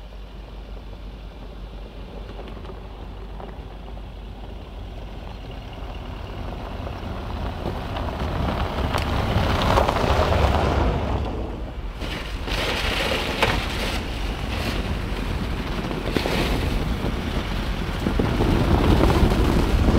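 Toyota Hilux 2.4 turbodiesel pickup driving, its engine and tyre noise a steady rush that builds to a peak about ten seconds in, dips briefly, then carries on steadily.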